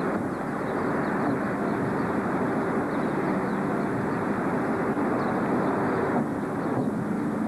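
Steady vehicle noise, an even rumble with no change in level, with faint short high chirps now and then.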